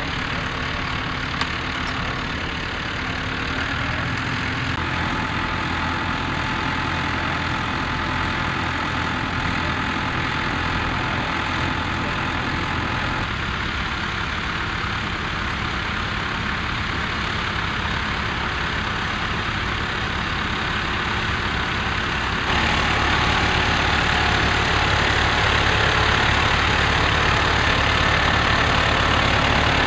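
International 785 tractor's four-cylinder diesel engine running steadily under load as it pulls a plough through the ground, getting noticeably louder about three-quarters of the way through.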